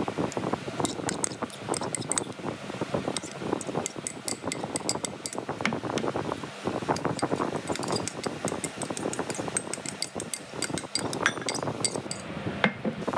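Metal spoon clinking and scraping against glass bowls as dressed coleslaw is scooped and tipped from a glass mixing bowl into a smaller glass bowl, with the rustle of shredded cabbage shifting. There are frequent sharp clinks throughout.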